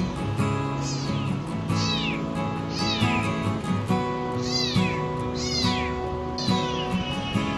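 Young kitten meowing over and over, about once a second, each cry high-pitched and falling away at the end, over background music.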